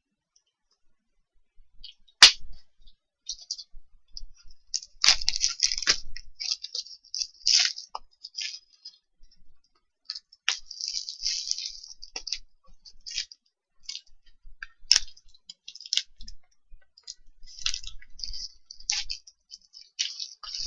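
Plastic shrink-wrap being torn open and peeled off a vinyl record package: crinkling in irregular bursts, with sharp snaps about two seconds in and again about fifteen seconds in.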